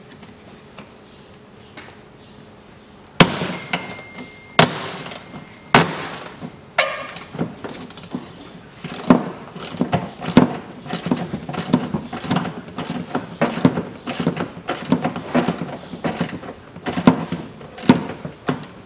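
Socket ratchet working the front strut top-mount bolts: a few sharp metal knocks, then from about nine seconds in a steady run of clicks, two or three a second, as the bolt is turned.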